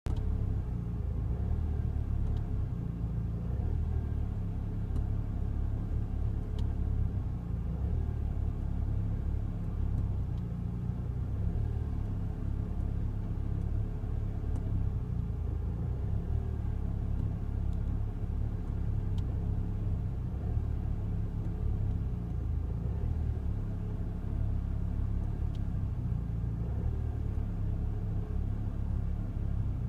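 Ford Fiesta ST engine idling, a steady low rumble, which the owner suspects is a rough idle.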